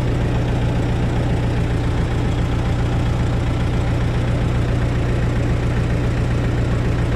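T-40 tractor's air-cooled diesel engine idling steadily, with an even, rapid knock of its firing strokes.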